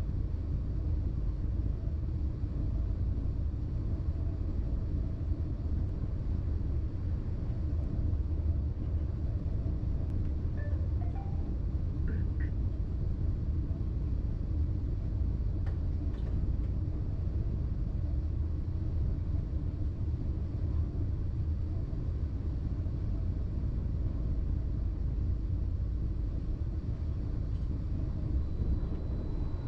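Steady low rumble of a BLS RABe 515 'MUTZ' electric multiple unit running along the line, heard from the driver's cab. A thin high tone comes in near the end.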